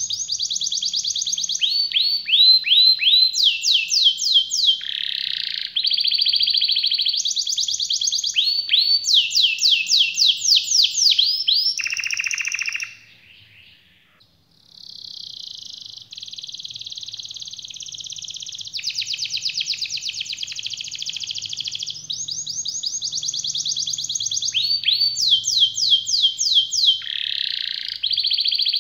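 A red-factor domestic canary singing a long, unbroken song of fast rolling trills and runs of repeated down-slurred notes. About halfway through it stops for a second or two, then starts again softly and builds back up.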